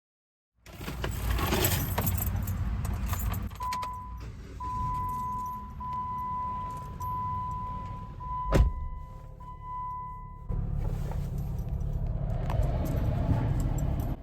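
Handling noise and rustling inside a car, with keys jangling and a car's warning chime sounding as a run of long, high, steady beeps for several seconds. A single sharp knock comes about halfway through.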